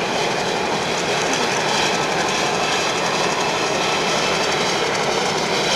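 Union Pacific E9 diesel passenger locomotive running with a steady, even noise.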